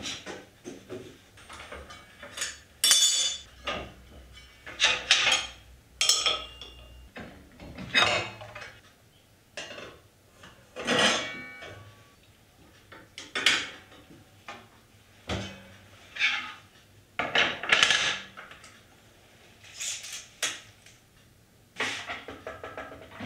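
Separate metallic clinks and knocks, one every second or two, some ringing briefly, as tools and parts are handled on a cast-iron table saw while it is set up; the saw itself is not running. A board is laid on the table near the end.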